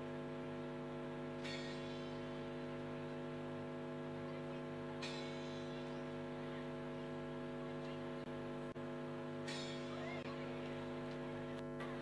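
Steady electrical mains hum, a buzzy stack of tones that holds unchanged throughout, with three brief faint hissing swells about every three to four seconds.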